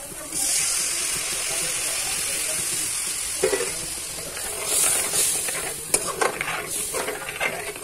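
Water poured into a kadhai of hot oil and fried masala sets off a sudden, loud sizzle about half a second in that holds for a few seconds. A metal ladle then stirs and scrapes around the pan as the liquid bubbles.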